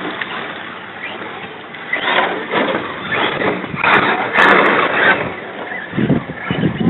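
Remote-control car driving around a dirt track, with irregular rushes of gritty noise.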